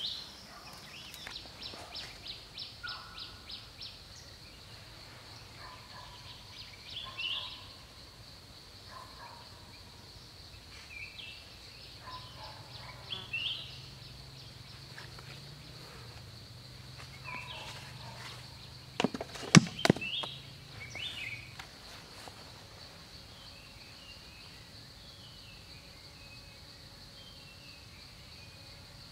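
Forest ambience: a steady high insect drone with bird calls every few seconds, including a quick run of short repeated chirps in the first few seconds. About two-thirds through comes a brief cluster of sharp clicks, the loudest sounds here.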